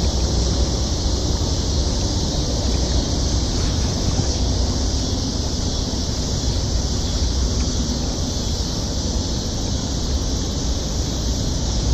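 Steady outdoor noise with no distinct events: a constant high hiss over a low rumble.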